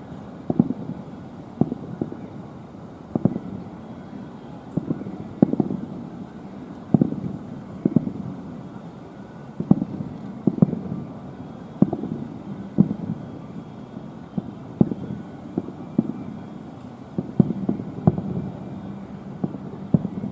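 Aerial fireworks shells bursting in quick, irregular succession: deep booms about once a second, with a low rumbling echo between them.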